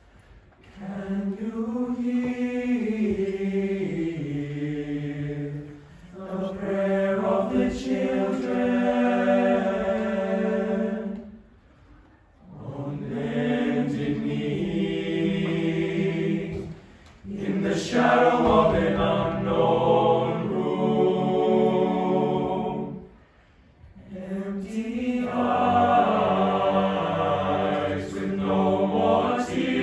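Unaccompanied choir of teenage boys singing in harmony under a conductor, in long sustained phrases with brief breaks for breath between them.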